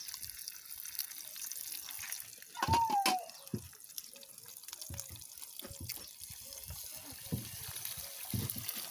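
Eggs frying in oil in a frying pan, a steady sizzle with many small crackles and spits. About three seconds in there is a brief, louder sound that falls in pitch.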